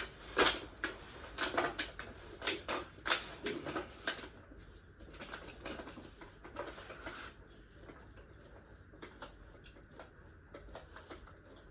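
Clicks and knocks of hand work on a car's front-end parts. They come thick and fast for the first four seconds, then turn sparse and quieter.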